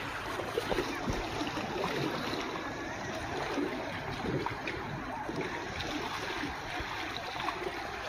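Small sea waves washing on the shore, a steady wash of surf.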